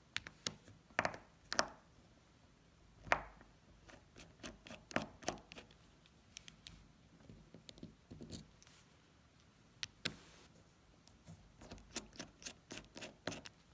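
Irregular small metallic clicks, scrapes and taps of a screwdriver working Torx screws out of a pneumatic thermostat's metal body, with the parts being handled between turns.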